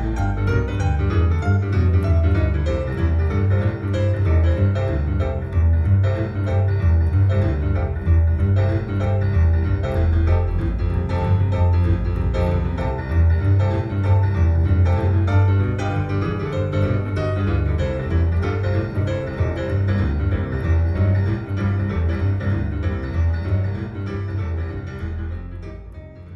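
Recorded music played through a pair of Tannoy XT8f loudspeakers and picked up in the room, with a strong, deep bass line under the melody. The music fades out near the end.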